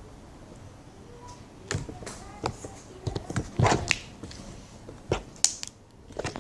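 Slime being squeezed and worked in the hands, making scattered sharp wet clicks and pops at irregular intervals.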